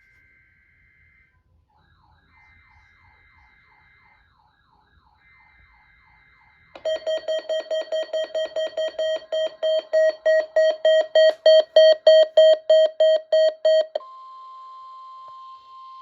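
Three faint warbling bursts of weather-radio data tones (SAME header) come from a Midland WR100 weather radio. About seven seconds in, the radio's loud alert alarm sounds, beeping about four times a second. Near the end it gives way to a steady single-pitch tone, NOAA Weather Radio's warning alarm tone, during a required weekly test.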